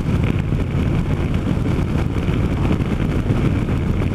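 Harley-Davidson motorcycle's V-twin engine running steadily at road speed while riding.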